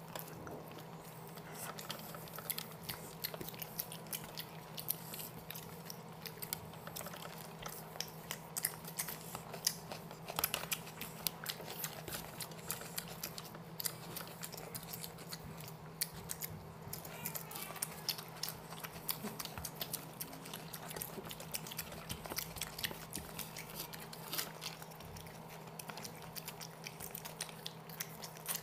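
Two people eating chicken biryani and chicken tangdi kabab with their hands: chewing and many small irregular clicks from mouths and from fingers picking through rice and chicken. A steady low hum runs underneath.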